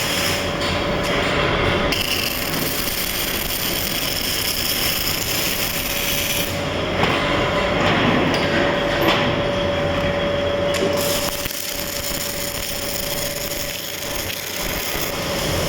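MIG welding arc crackling and sputtering steadily, with a thin steady tone underneath.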